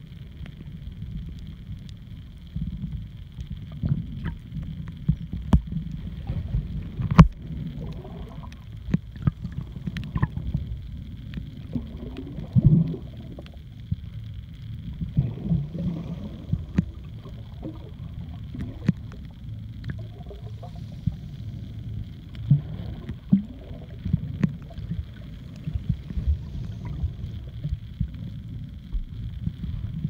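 Muffled underwater sound as picked up by a camera held under the sea: a steady low rumble of moving water with scattered sharp clicks and knocks, a few gurgling swoops, and a faint steady high whine.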